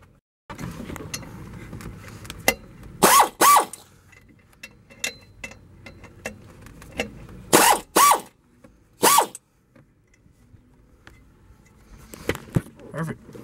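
Socket ratchet clicking on the water pump pulley nuts of a Volvo Penta 5.7 GS engine as they are broken loose, the alternator belt left on to hold the pulley still. A few short, loud, sharp sounds stand out: two pairs and then a single one.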